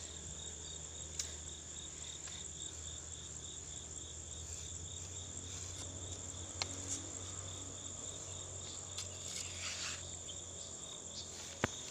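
Insects chirping steadily in a high, continuous chorus, one note pulsing evenly. There are a few faint clicks and a brief rustle from footsteps through grass.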